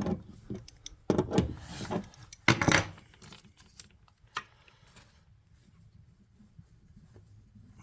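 Hands working on a toilet's plumbing parts: a run of sharp clicks, knocks and rustling over the first three seconds, then it dies down to a faint background hum.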